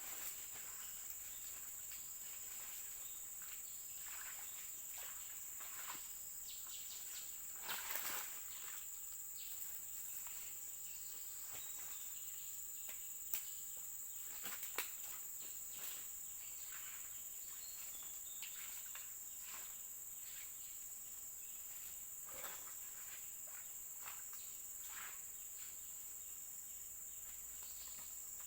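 Steady high-pitched chirring of insects such as crickets, with occasional short rustles and clicks, the most noticeable about 8 seconds in and twice around 13 to 15 seconds.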